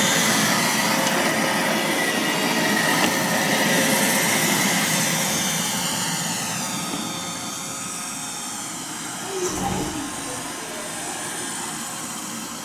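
Roomba robot vacuum running, a steady whirring hum that fades over the second half as the robot moves away. A brief low thump about nine and a half seconds in.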